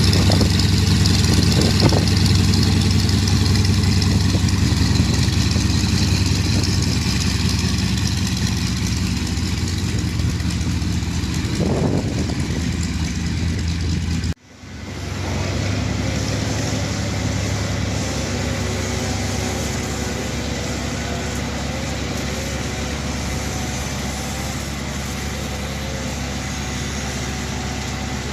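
Yakovlev Yak-52's nine-cylinder M-14P radial engine running steadily. The sound cuts out abruptly about halfway through and the engine sound picks up again straight after.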